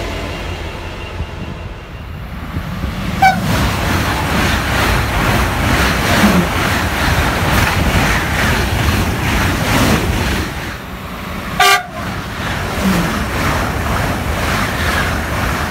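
ICE high-speed train passing close at speed, a steady rushing noise of wheels and air, with two short toots of its Makrofon horn: a faint one about three seconds in and a louder one about twelve seconds in.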